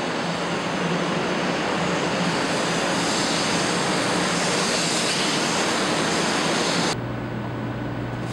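500 Series Shinkansen train moving along a station platform: a loud, steady rushing of air and running gear. It cuts off suddenly about seven seconds in to a quiet, steady low hum inside a passenger car.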